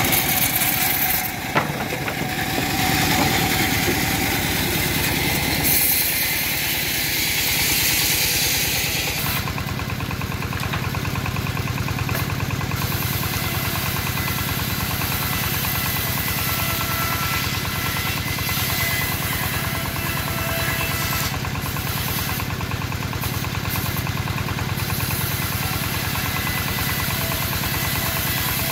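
Engine of a homemade bandsaw mill running steadily with an even pulse, not under cutting load. A higher hiss lies over it at first and drops away about nine seconds in.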